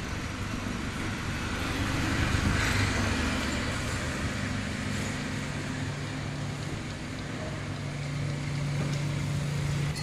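Road traffic noise with a steady engine hum, swelling about two to three seconds in and again near the end.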